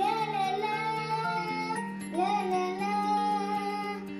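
A young girl singing in long held notes over sustained instrumental accompaniment, with a new sung phrase starting about two seconds in.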